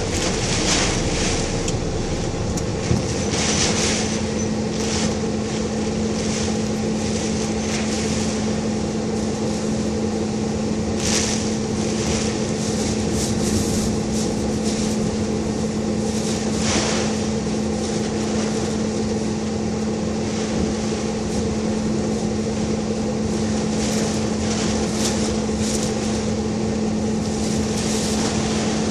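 Car driving in typhoon wind and rain: a steady rush of road, engine and storm noise with brief swells of gusts or spray now and then. A steady hum sets in about three seconds in.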